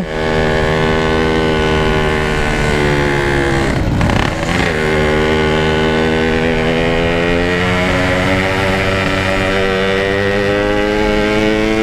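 Yamaha RX-King's two-stroke single-cylinder engine running steadily as the motorcycle is ridden, its pitch easing down over the first few seconds. There is a brief break in the tone about four seconds in, after which it runs steadily again.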